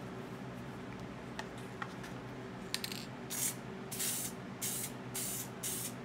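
Aerosol can of flexible vinyl coating spraying in short bursts: about five quick hisses in the second half, laying on light coats. A few faint clicks come before the spraying starts.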